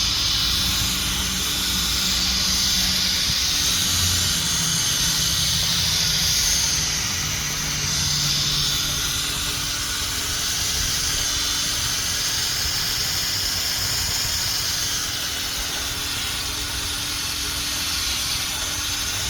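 Drill spinning a 3000-grit sanding disc against a plastic headlight lens: a steady motor whine with an abrasive hiss as the yellowed, hazy surface is sanded off in multiple passes.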